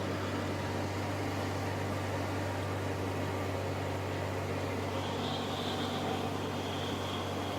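Steady drone of a Case IH 8250 combine's engine and threshing machinery running while cutting wheat, with a faint high whine joining in about five seconds in.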